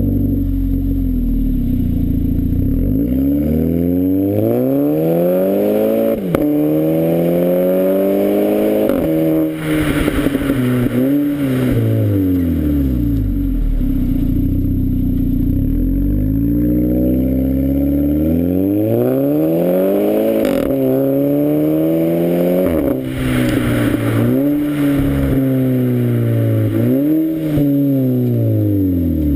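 Golf 5 GTI Edition 30's turbocharged 2.0-litre four-cylinder through a Friedrich Motorsport exhaust with a 200-cell Zeller sports catalytic converter, heard at the tailpipe. It pulls hard twice, rising in pitch with quick upshifts and a short crack at some of the shifts, and eases off in between.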